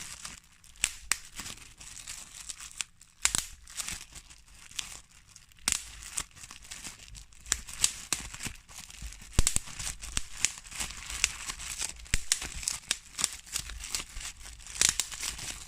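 Bubble wrap being popped: sharp, irregular pops, some close together and some a second or more apart, over the crinkling of the plastic sheet.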